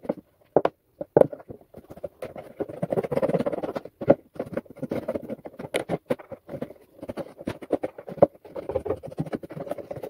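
A utility knife slicing around the rim of a thin plastic food tub: the plastic scrapes and crackles, with many small clicks as it is cut and handled.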